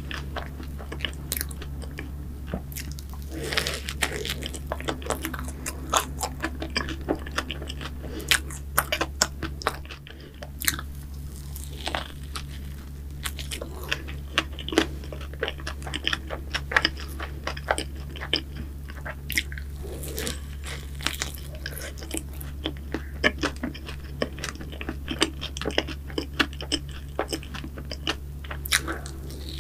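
Close-miked eating of a cream-topped croffle: crisp crunchy bites and chewing with many sharp crackles and wet mouth sounds, continuing throughout.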